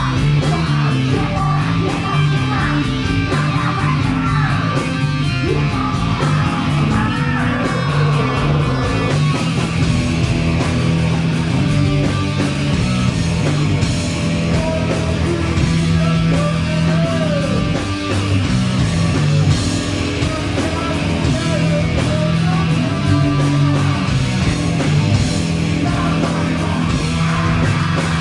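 Loud rock music with electric guitar and bass playing continuously.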